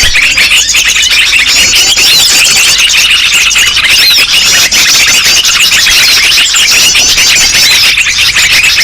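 A dense, loud chorus of many small birds chirping and twittering at once, the rapid calls overlapping without a pause. It is a 'ribut' (commotion) recording of agitated birds, used as a lure to draw other birds in.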